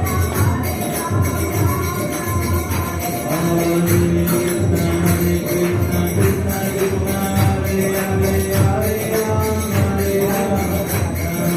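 Devotional kirtan music: hand cymbals jingling in a fast, steady rhythm over a regular drum beat, with long held notes.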